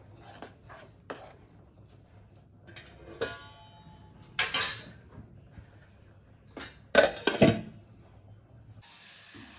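Stainless steel pot, spoon and lid clinking and clattering: a few light knocks and a short metallic ring as the spoon comes out, then the steel lid set on the pot with the loudest clatter about seven seconds in. Near the end a steady sizzle of tempering frying in hot oil starts.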